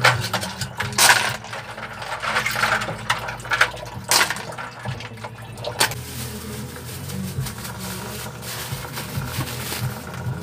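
Small sea-snail shells clattering against each other in a plastic basin in sharp bursts for the first several seconds. Then a kitchen faucet runs a thin steady stream of water into a basin.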